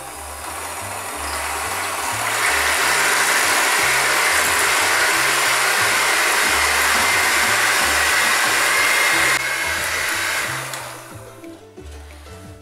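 Electric hand mixer whirring steadily as its twin beaters whip eggs and sugar in a glass bowl until doubled in volume. It gets louder about two seconds in, then winds down and stops shortly before the end.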